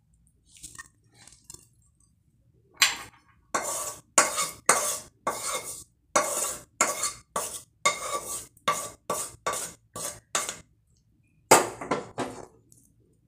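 Spatula scraping and knocking against a kadai and a plate as cooked chicken is emptied out of the pan: faint scrapes at first, then a quick run of sharp scrapes about two a second, and two last strokes near the end.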